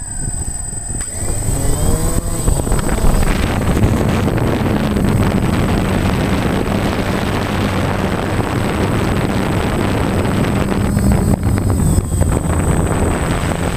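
Electric motors and propellers of a radio-controlled FPV aircraft spooling up at takeoff, the pitch rising over the first couple of seconds, then running at a steady drone with a thin high whine as it climbs. Wind rushes over the onboard camera's microphone.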